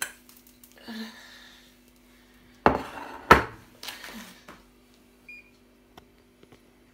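Frying pan set down on a glass-ceramic hob: two sharp clacks about half a second apart, with a few lighter knocks and clinks around them over a faint steady hum.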